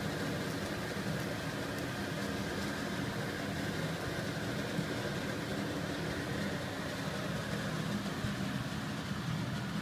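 Strips of cuttlefish frying in olive oil in a pan: a steady sizzle over a low hum.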